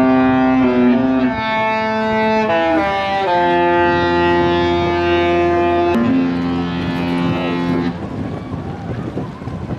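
Disney Fantasy's musical ship horn playing a tune, several long held notes that step up and down in pitch and stop about eight seconds in, followed by wind noise on the microphone.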